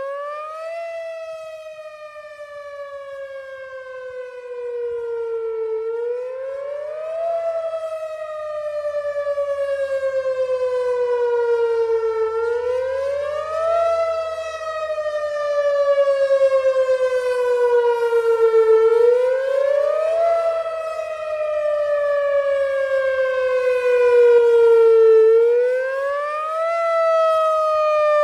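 Whelen Vortex electronic outdoor warning siren sounding a monthly test: a loud tone that rises quickly, then slides slowly back down over about five seconds, five times in a row. Its loudness swells and fades.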